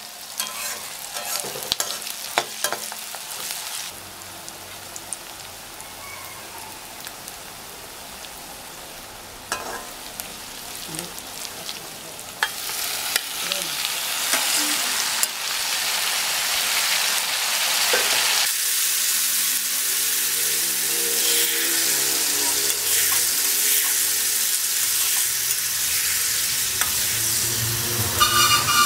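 Onions and green chillies sizzling in oil in a metal kadai, stirred with a steel spatula that scrapes and clinks against the pan. About 12 seconds in, chopped tomatoes are tipped in and the sizzling turns much louder, staying loud under the stirring.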